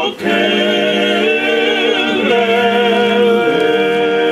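A group of voices singing a Christian chorus in Bemba, holding long notes together. The notes change pitch about two seconds in and again near the end.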